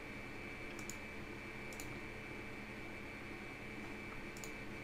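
Quiet room tone with a steady electrical hum and hiss. Three faint computer mouse clicks, about a second in, near two seconds, and near the end.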